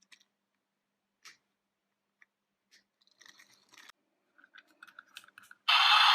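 Light clicks and scrapes of plastic toy vehicles being handled and set down. Near the end, a sudden loud, steady rushing noise starts and carries on.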